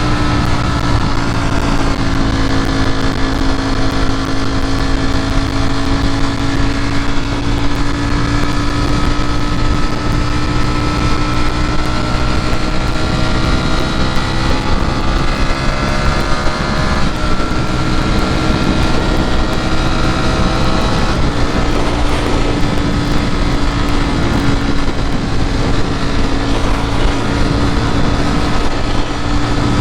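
Ducati Panigale V4 S V4 engine running under way, its note drifting slowly up and down in pitch, with a steady rush of wind.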